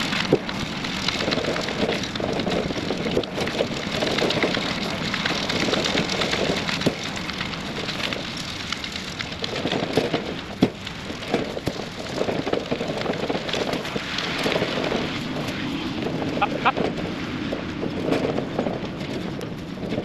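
Low wooden-deck utility trailer rolling over a hay field behind a pickup truck, making a steady rattling noise, with a few sharp thuds as small square hay bales are set on its deck.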